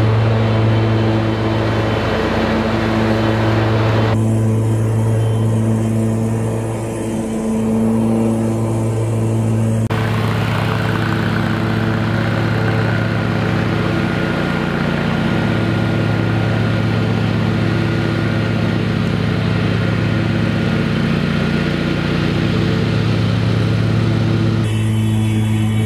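Toro 6000 Series zero-turn mower running steadily at mowing speed, cutting tall field grass. The steady engine drone changes tone abruptly a few times.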